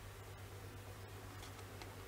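Quiet room tone with a steady low hum and a few light ticks in the second half from fingers handling a clear plastic display case.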